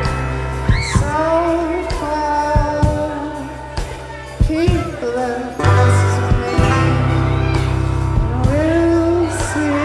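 Live rock band playing loudly: electric guitar, bass and drums, with singing.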